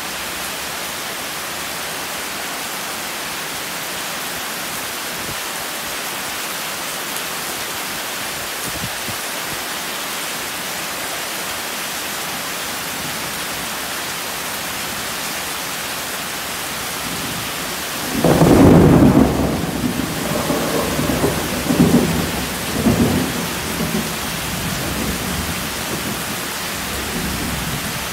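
Heavy rain pouring and splashing steadily. About two-thirds of the way through, a thunderclap breaks out and rumbles on for several seconds with a few further peaks before dying away under the rain.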